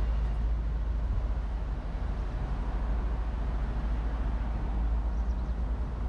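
Wind buffeting a GoPro Hero 8's built-in microphone: a steady low rumble, with street traffic noise underneath.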